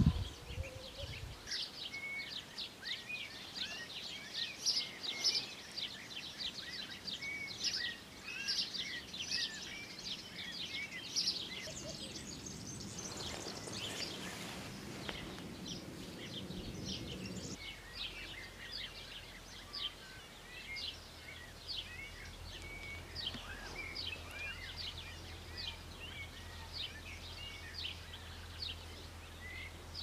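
A chorus of small birds chirping: many short, high calls overlapping without a break. Around the middle a soft rushing noise swells and then fades under the calls.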